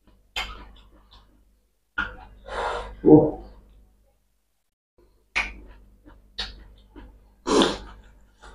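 A man panting in short, sharp breaths through the mouth, about half a dozen with pauses between, as he bites and chews a raw tomato. His mouth is burning from green chillies.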